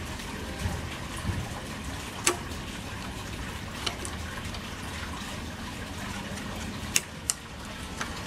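A handful of sharp little clicks and taps from tools and metal parts being handled on an overlock sewing machine under repair. The loudest comes about two seconds in and a close pair near the end, over a steady background hiss.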